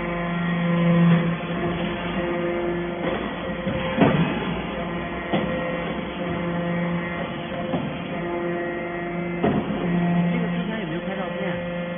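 Hydraulic baler for stainless steel chips running: a steady machine hum that swells and fades every few seconds, with a few sharp metallic knocks, the loudest about four seconds in.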